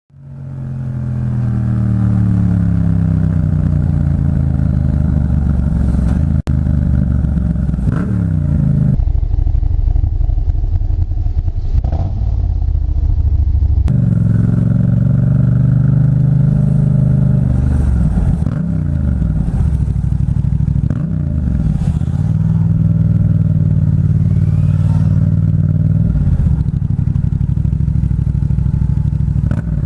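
Yamaha MT-07's 689cc parallel-twin engine through an aftermarket Black Widow exhaust, heard from the rider's helmet while riding. Its pitch repeatedly falls and rises as the bike slows and accelerates.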